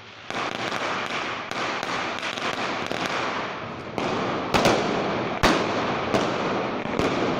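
A string of firecrackers going off in rapid crackling pops, starting about a third of a second in, with a handful of louder single bangs in the second half.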